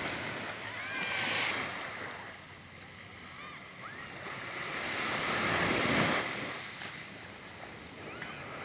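Small waves washing up on a sandy beach. The surf swells twice, the second wash about six seconds in the loudest.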